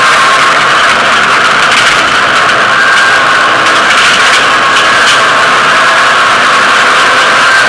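Rally car engine running hard at speed, heard loud and steady from inside the cabin along with road noise.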